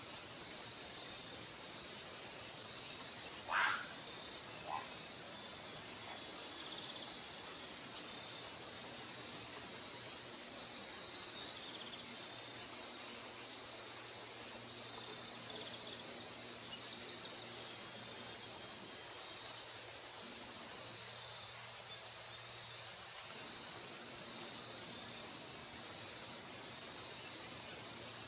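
Insects chirping steadily in a high, evenly repeating pulse over a faint even hiss. A single short, sharp sound stands out about three and a half seconds in.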